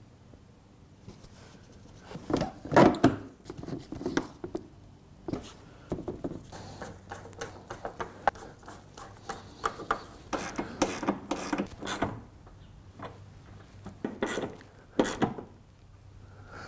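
Irregular clicks, taps and knocks of hand work on car parts: a plastic corner light being fitted into a bumper, then a screwdriver and a small socket ratchet turning bolts. The loudest knocks come about three seconds in.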